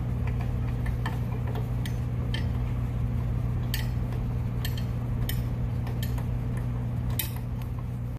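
Sparse, irregular metallic ticks and clinks of a socket tool turning bolts on a small lawnmower engine's carburetor adapter, over a steady low hum.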